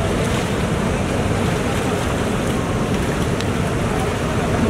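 Steady rush of water pouring over a dam spillway and churning through the river below.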